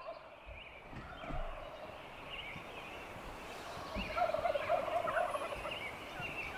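Merriam's wild turkey gobblers gobbling off in the trees, with faint gobbles early on and the loudest run of overlapping gobbles about four seconds in.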